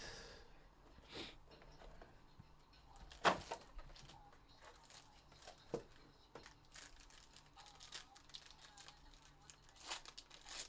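Hands handling a trading-card box and opening its wrapping: light rustling and crinkling with scattered clicks and taps, the sharpest a single tap about three seconds in.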